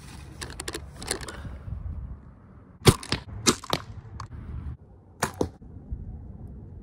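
Compound bow heard close up: a sharp crack about three seconds in, with several lighter knocks and clicks before and after it as the bow is drawn, shot and lowered.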